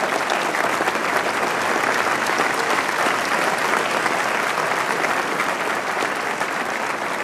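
Large crowd applauding: dense, steady clapping from many hands.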